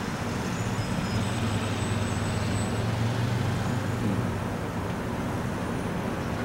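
Steady low rumble of distant engines, a little stronger in the middle, with a couple of faint thin high tones above it.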